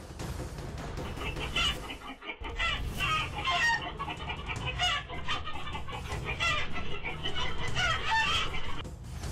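Domestic hens squawking and cackling in alarm, many rapid overlapping calls, as a small predator attacks inside the coop. The calls start about a second in and stop shortly before the end.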